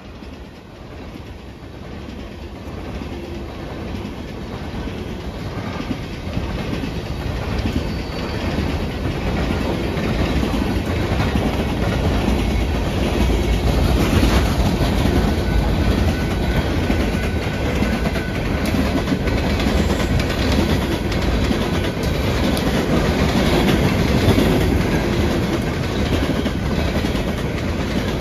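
Empty coal hopper cars of a freight train rolling past, their wheels clacking over rail joints. The sound grows louder over the first dozen seconds, then holds steady.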